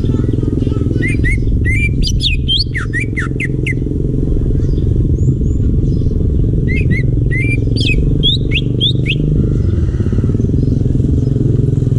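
Cucak ijo (green leafbird) singing two phrases of quick, sharp whistled notes that sweep up and down, the second starting about halfway through. Under the song runs a loud, steady, engine-like low rumble.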